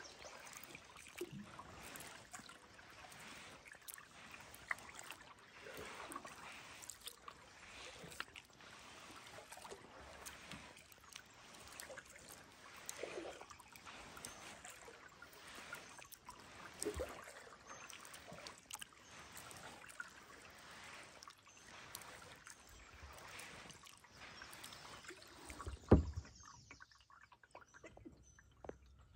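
Faint kayak paddling: the paddle blades dipping into calm water stroke after stroke, with small splashes and drips. A single sharp knock comes near the end, after which the paddling stops and it goes nearly quiet.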